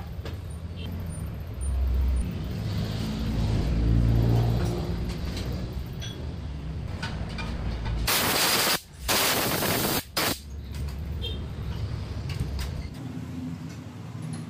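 A low machine rumble and hum runs throughout, swelling a couple of times. About eight seconds in, a loud hiss cuts in, breaks off twice, and stops after about two seconds.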